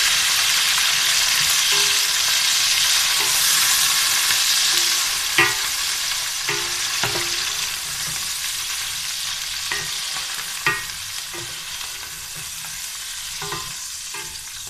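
Sliced onions, capsicum and green garlic shoots sizzling in hot oil in a metal pot, stirred with a wooden spoon that knocks against the pot a few times. The sizzle is loudest at first, just after the vegetables go in, and dies down gradually.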